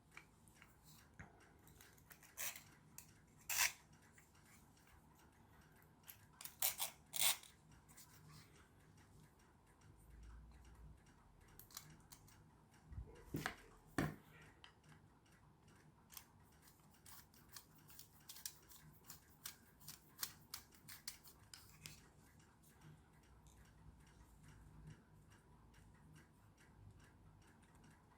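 Intermittent sharp clicks and short scrapes of a small hand tool trimming the rough edges of a 3D-printed plastic clamp, with a quick run of small ticks in the middle.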